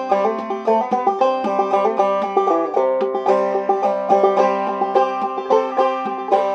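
Banjo played clawhammer style: a quick, steady run of plucked notes over a ringing lower string, an old-time fiddle tune.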